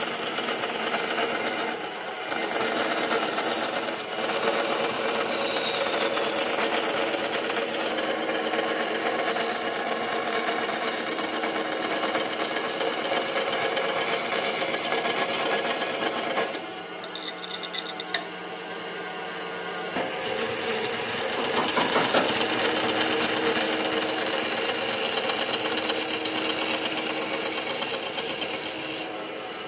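Power tool running steadily on wood, with a busy, rapid mechanical sound. It drops away for a few seconds a little past halfway, then starts again.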